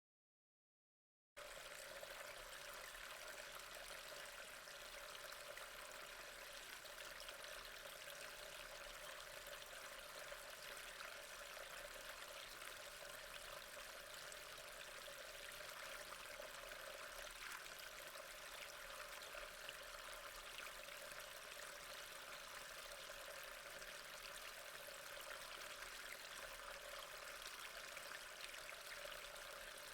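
Water flowing steadily in an even, unbroken rush, starting about a second and a half in after dead silence.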